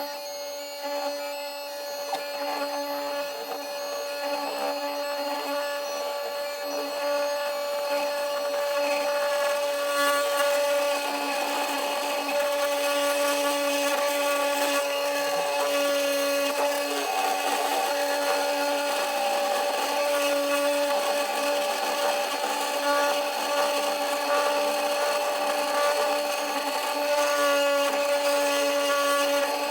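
CNC 3018 Pro desktop router milling an aluminium plate: the spindle whines steadily while the end mill makes a rough, scratchy cutting noise. It grows louder over the first several seconds, then holds steady.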